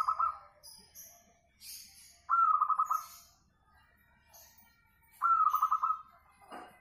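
Local zebra dove (perkutut) singing. Its short trilled coos open with a quick rising note and run as a fast purring roll, repeated about every three seconds.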